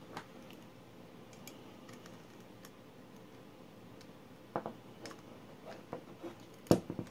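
Small screw being turned by hand with a precision screwdriver into an aluminium drive sled through a metal drive bracket: scattered light metallic clicks and ticks, with a few louder taps about halfway through and near the end.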